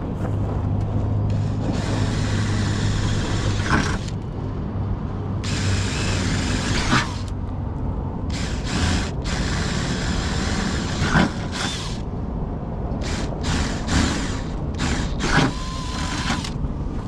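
Cordless drill boring through the van's steel rear door, enlarging 3/16-inch holes to 3/8 inch. It runs in several stretches with short let-ups between them.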